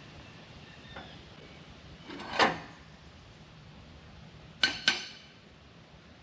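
Metal clanking from hands-on work on a steel frame with tools: one loud clank with a short ring about two and a half seconds in, then two sharp clanks in quick succession near the end.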